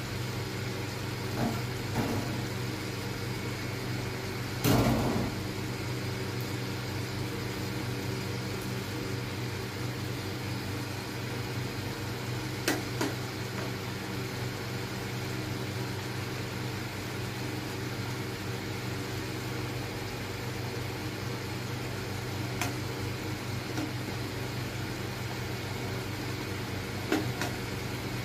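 Steady hum of an induction cooktop running under the pan, with a few knocks of a spatula against the pan as the gravy is stirred, the loudest about five seconds in.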